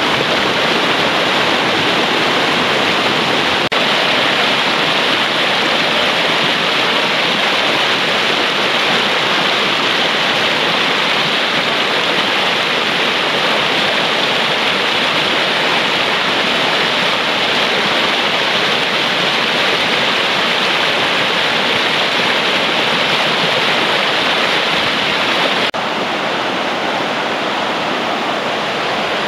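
Fast mountain stream rushing over rocks in white-water riffles: a steady, loud water noise, broken briefly twice, and a little quieter after the second break near the end.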